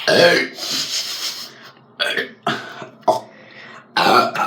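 A boy burping after drinking fizzy ginger ale: one long, loud burp at the start, followed by several shorter vocal sounds.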